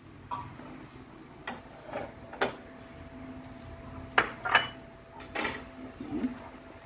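Kitchen clatter: about six short, sharp clinks and knocks of utensils and dishes handled around a frying pan, with a faint steady tone through the middle.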